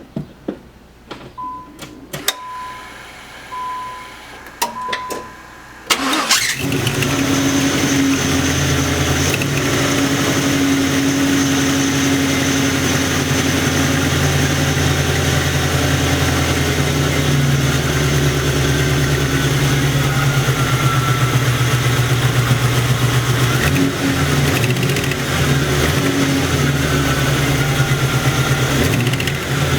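A few clicks and a repeating electronic chime beep. About six seconds in, an LT1 small-block V8 starts and settles into a steady idle. It carries a knock on the driver's side that turned out to be an exhaust leak at the rear header port.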